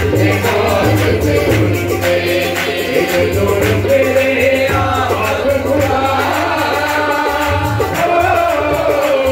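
A man sings a Punjabi devotional song while playing harmonium, with tabla accompaniment. His voice holds long notes that waver and bend in pitch over the harmonium's held chords and the tabla's steady strokes.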